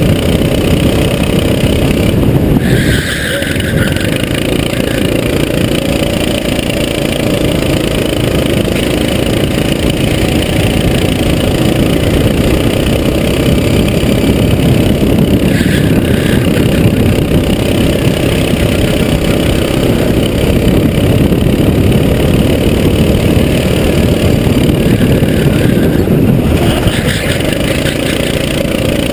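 Go-kart engine running hard, heard from a camera mounted on the kart. Engine note drops briefly as the throttle is lifted about three seconds in and again near the end, then picks back up.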